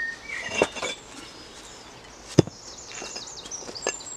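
Flat stones knocked against each other and set down on the dirt as they are laid by hand, a few separate knocks with the sharpest about halfway through. Birds chirp in the background.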